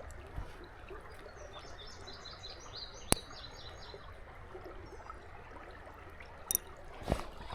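Creek water running steadily, with a songbird singing a string of quick, repeated high notes for a couple of seconds near the start. A few sharp clicks come about three seconds in and again near the end.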